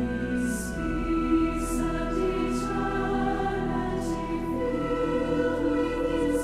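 Large choir singing a slow hymn in sustained phrases over pipe organ, whose low notes are held underneath. Crisp 's' consonants from the singers land together every second or so.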